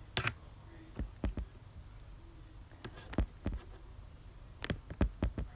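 Scattered light clicks and knocks, about ten in all and unevenly spaced, from handling the recording device, over quiet room tone.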